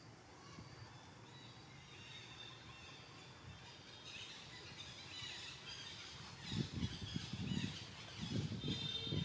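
Outdoor ambience with faint, high chirping calls from about two seconds in, joined about two-thirds of the way in by louder, irregular low rumbling.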